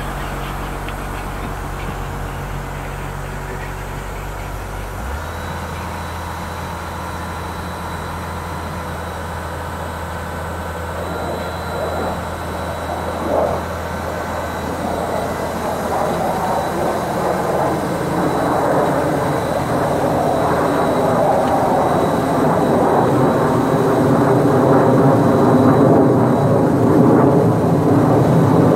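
Diesel engine of an Ingersoll Rand CM470 crawler drill rig running; about five seconds in its speed steps up, and over the second half the machine noise grows steadily louder.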